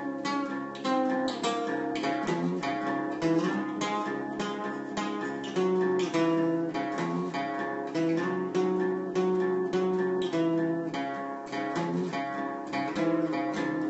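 Acoustic guitar played solo: a steady run of plucked chords and single notes, each left ringing on.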